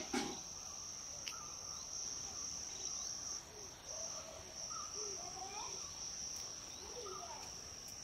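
Insects, crickets or similar, shrilling in one steady, unbroken high-pitched tone, with faint wavering calls beneath it midway and a brief knock at the very start.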